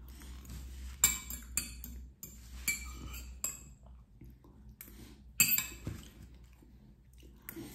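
Cutlery clinking and scraping against a plate of pasta in a handful of sharp, ringing clinks, the loudest about a second in and again a little past halfway.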